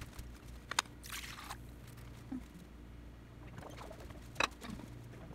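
A few light clicks of glassware on a granite countertop, and a brief hiss about a second in, over a low steady hum.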